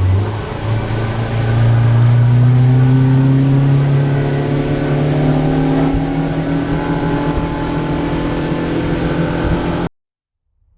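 Boat's outboard motor accelerating: its pitch climbs steadily for about six seconds, then holds at a steady cruising speed. It cuts off suddenly shortly before the end.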